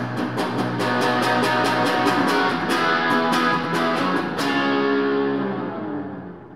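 Electric guitar music with steadily picked notes and chords. About four and a half seconds in the picking stops and a last chord rings on, fading out.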